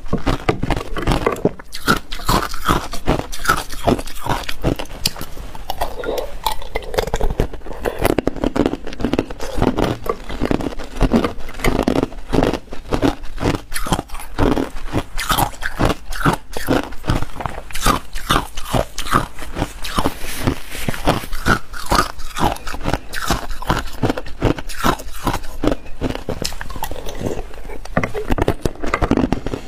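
Close-miked crunching and chewing of hard ice cubes: a dense, irregular run of sharp cracks and crunches.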